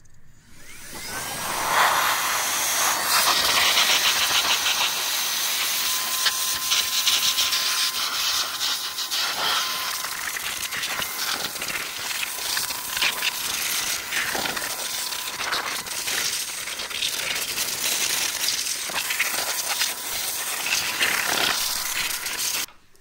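Handheld electric air blower running steadily: a loud rush of air with a thin motor whine, blowing dust out of an open amplifier chassis. It spins up over the first couple of seconds and cuts off abruptly near the end.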